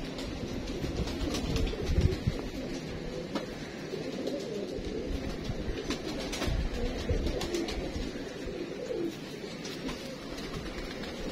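Domestic pigeons cooing over and over, with a few low bumps around two and six seconds in.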